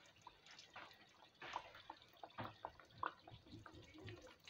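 Faint, irregular popping and crackling of oil bubbling around a float bake (soft yeast dough) deep-frying in a pan.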